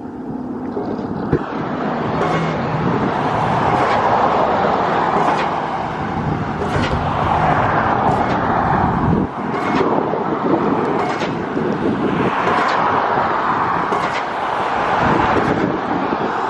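Wind buffeting the microphone in a steady breeze: a loud rushing noise that swells and eases, with sharp pops from gusts.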